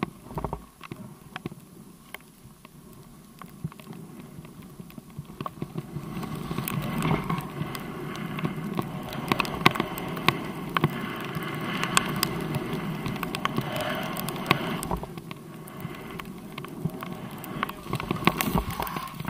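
Snow hissing and crunching under a rider sliding down through deep powder, with scattered clicks and knocks. It gets louder about six seconds in, eases after about fifteen seconds, and has a short, sharp flurry near the end.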